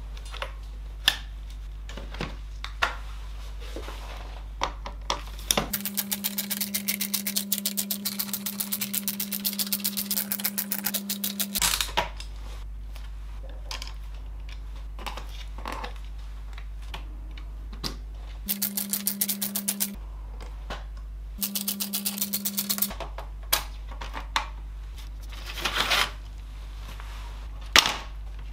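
A small electric motor whirring with rapid, even clicking, in one run of about six seconds and two short runs later on, typical of an electric precision screwdriver backing screws out of a laptop's plastic bottom case. Between the runs come scattered clicks and taps of plastic parts and tools being handled.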